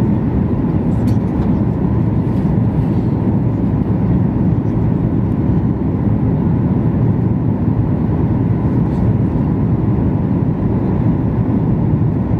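Cabin noise of a Boeing 737 MAX 8 airliner: a steady, loud, low rush of airflow and its CFM LEAP-1B turbofans, unchanging throughout.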